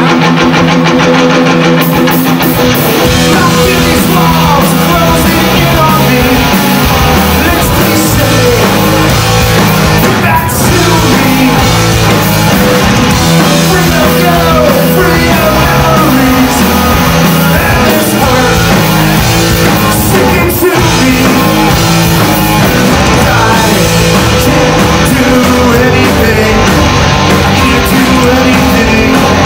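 Live rock band playing loud, with electric guitars, drums and a singer's vocals.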